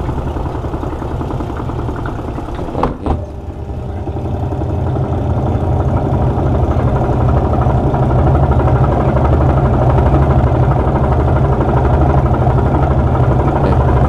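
Sharp single-tub washing machine spinning its drum in spin-dry mode, running on a manual timer fitted in place of its dead control module. A steady motor hum builds over the first several seconds, then holds. There is a short knock about three seconds in as the lid is shut.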